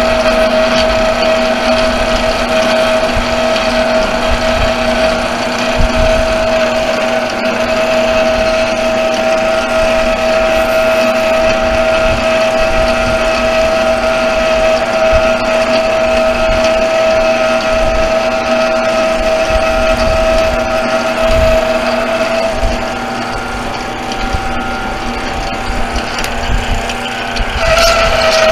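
Metal lathe running while its cutting tool turns a brake rotor hub: a steady machine whine of several held tones. The highest, strongest tone drops out about 23 seconds in and comes back near the end.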